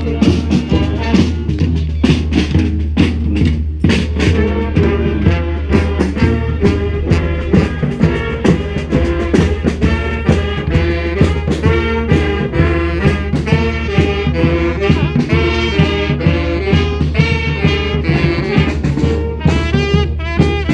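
Brass street band playing an upbeat rock tune: horns play the melody over a low bass line, with drums keeping a steady beat.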